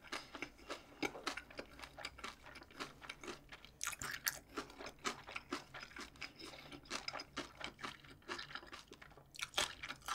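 Close-miked crunchy chewing of a mouthful of bossam wrapped with kimchi: a quick, irregular run of small crisp crunches.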